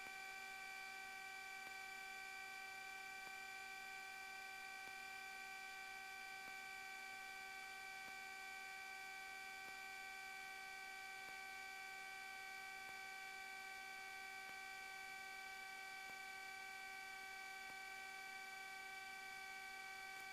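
Faint, steady electrical hum on the cockpit intercom audio line: a set of fixed tones that do not change, with no voices or radio traffic.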